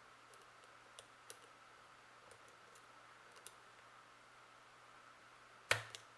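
Faint, scattered metal ticks of lock picks working the finger pins of a Tubar lock, with a louder, sharper double click near the end as pin 6 is pushed into place.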